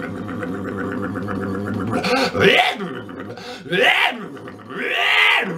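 A man imitating a sports car burnout with his voice: a steady low engine rumble made in the throat, then three rising-and-falling squealing glides, like revving and tyres spinning.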